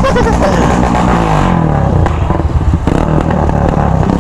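Loud motorcycle engines on straight pipes revving and running, the onboard Yamaha XT's exhaust rising and falling with the throttle, with at least one other bike revving close by.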